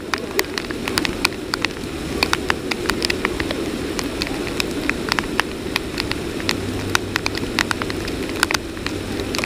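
Heavy rain falling, a steady hiss with many irregular sharp ticks of raindrops striking close to the microphone.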